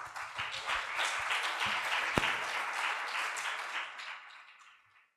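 Audience applauding with many hands clapping, dying away near the end.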